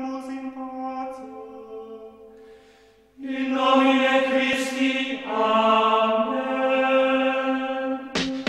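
Voices chanting in Latin in the style of Gregorian plainchant, on long held notes. A softer phrase fades out about three seconds in, and after a short pause a louder phrase follows. A drum beat comes in right at the end.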